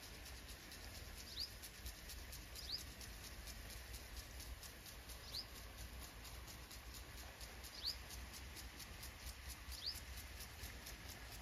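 A bird giving a short, high, falling chirp every couple of seconds, about five times, over faint outdoor ambience with a low wind rumble.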